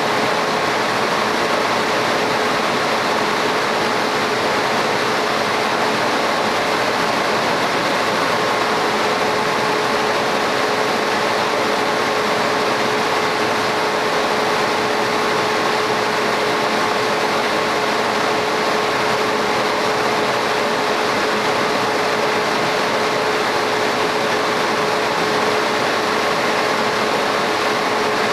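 Laser cutting machine running as it cuts into stone tile: a steady rush of air with a constant hum.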